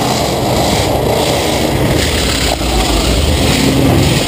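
International Harvester Scout II's engine revving hard under load while crawling up a rock ledge, its tyres spinning on the rock.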